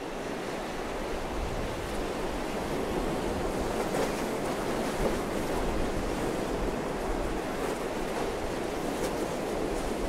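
Steady rushing noise like ocean surf, with no music or voice.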